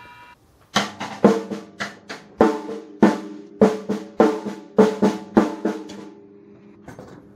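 Acoustic drum kit played in a steady beat of paired strikes, about one pair every half second or so, the drums ringing after each hit; the playing stops about six seconds in, leaving only a couple of faint taps.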